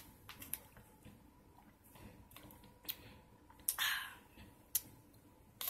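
Mostly quiet room with scattered light clicks and knocks from a coffee cup being handled after a sip, and a short breathy hiss about four seconds in.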